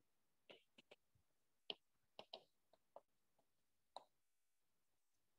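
Faint, irregular clicks and taps of a stylus tip on a tablet's glass screen during handwriting.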